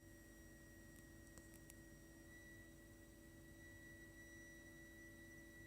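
Heat interface unit (HIU) and heating pipework giving off a steady, shrill high-pitched whistling tone with a fainter low hum beneath it. This is the abnormal continuous shrieking that the heating system makes even when no hot water or heating is being used.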